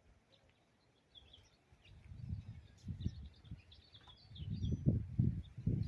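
Wind buffeting the microphone in low gusts that build from about a second in and are strongest near the end, with birds chirping faintly in the background.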